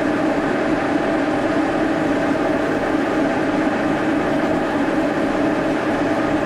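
Brown & Sharpe No. 2 Plain milling machine running steadily with its spindle turning, a continuous mechanical hum with a few held tones.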